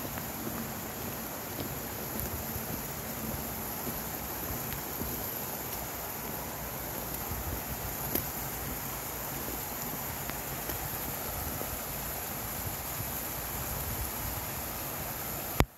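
Small mountain creek cascading over rocks in a steady rush of water. Near the end a sharp click, then the sound drops away abruptly.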